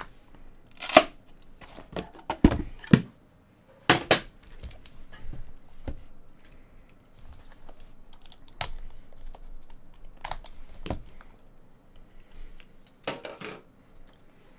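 Cardboard trading-card box being opened by hand: tape and wrap torn and cut, and the lid and box scraping and knocking on the table, in a string of short rips and knocks, loudest in the first few seconds.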